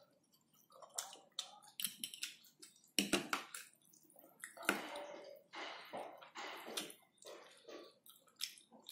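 Close-up mukbang eating of instant noodles: wet slurping and chewing in irregular bursts, with a few sharp clicks of forks against the plate.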